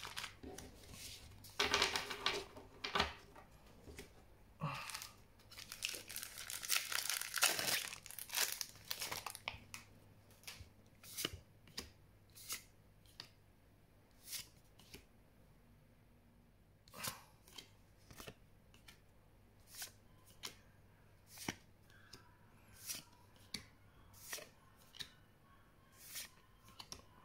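A Magic: The Gathering booster pack's foil wrapper torn open and crinkled for several seconds, then the cards flicked off the stack one at a time, a short card click about every second.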